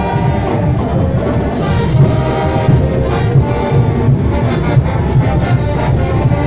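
Bolivian carnival brass band playing live: massed horns over bass notes and a steady drum and cymbal beat.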